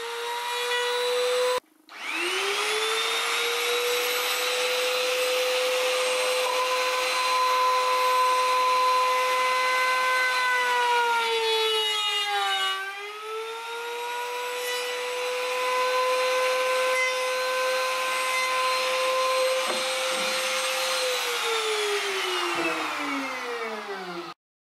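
Electric trim router with a dovetail bit running at a steady high whine while routing dovetail slots in the tray's wooden corners. It cuts out briefly and spins back up about two seconds in, and its pitch sags for a moment near the middle as the bit bites into the wood. Near the end it is switched off and winds down, falling in pitch.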